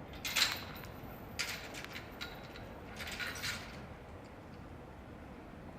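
Iron fence gate across the railway track being moved shut: three short scraping rattles, the first the loudest, over a low steady outdoor background.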